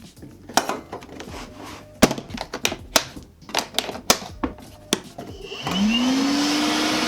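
A series of sharp plastic clicks and knocks from handling the unit. Then, about five and a half seconds in, the Milwaukee M12 Fuel cordless wet/dry vacuum's brushless motor spins up with a rising whine and settles into a steady run.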